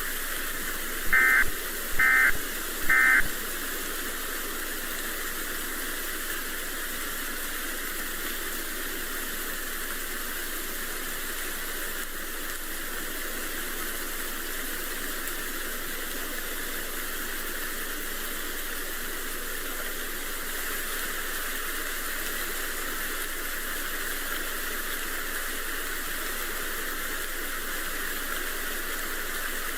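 Three short bursts of Emergency Alert System digital data tones, the warbling end-of-message code that closes an alert, about a second apart near the start. They are followed by a steady hiss of static on the dead air.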